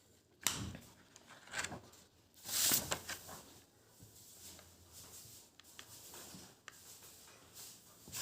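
A bicycle V-brake's brake block and fittings being handled and tightened: a few sharp clicks and a scrape of metal and tool in the first three seconds, then faint small ticks.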